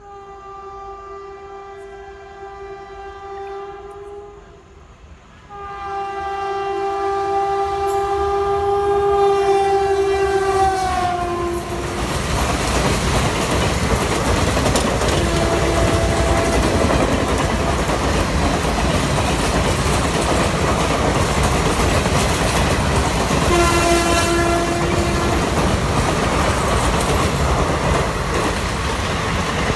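Indian Railways express locomotive horn sounding two long blasts, the second dropping in pitch as the locomotive passes, then the loud steady rush and rumble of the train's coaches running through at speed. Two shorter horn blasts sound over the passing train partway through.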